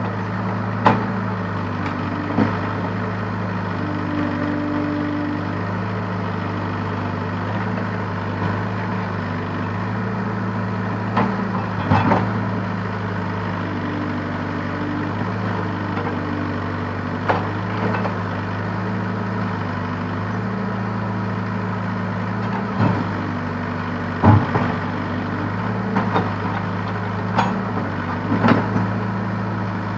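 Case backhoe loader's diesel engine running steadily, with about ten short, sharp knocks and clatters scattered through it, the loudest a little past the middle.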